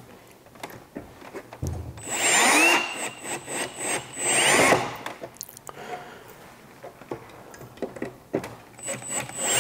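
Milwaukee Fuel cordless drill/driver driving Phillips screws into the grille bracket: two short runs about two and four seconds in, its motor whine rising and falling, with light clicking between them and again near the end.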